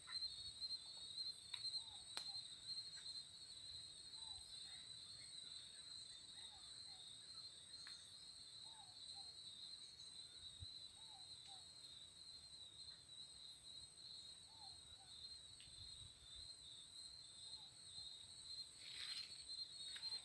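Crickets trilling in a faint, continuous, high-pitched chorus, with soft short paired chirps from another small creature every second or two.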